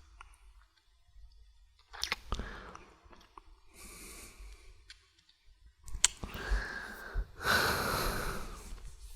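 A man breathing slowly and close to the microphone, about four breaths, with the last two the loudest, and a few short clicks among them.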